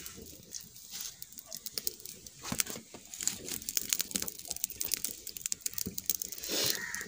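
Wood fire crackling: burning twigs and sticks give off irregular sharp pops and snaps over a faint hiss.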